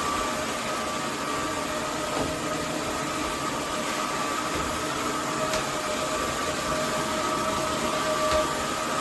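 Roborock F25 RT cordless wet-dry vacuum and mop running: a steady rush of suction with an even motor whine held on one pitch.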